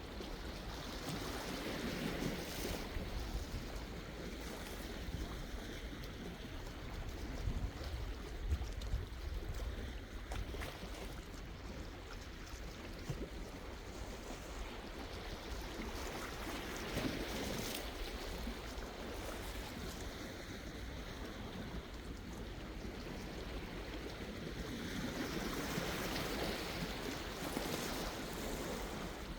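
Sea waves washing onto the shore in a steady rush, swelling in slow surges several seconds apart.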